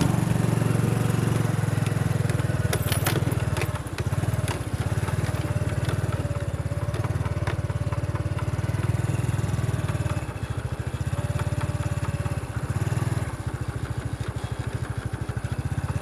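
Small motorcycle engine running as it rides slowly along a dirt track, easing off briefly a few times before picking up again.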